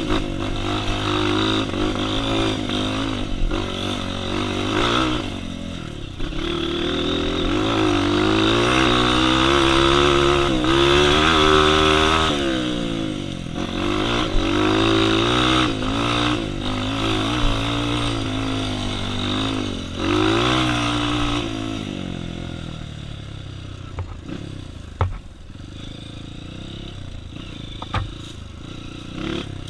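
Honda CRF trail bike's single-cylinder four-stroke engine under way off-road, revs climbing and dropping over and over with the throttle and gear changes. The engine falls away about two-thirds through, leaving a few sharp knocks and scrapes.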